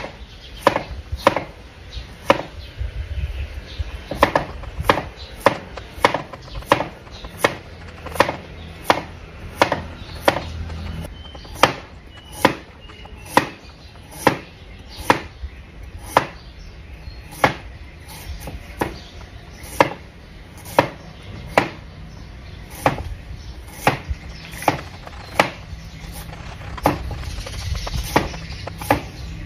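Cleaver slicing beetroot and then carrots on a wooden cutting board. The blade knocks on the board in a steady rhythm, about one and a half strokes a second.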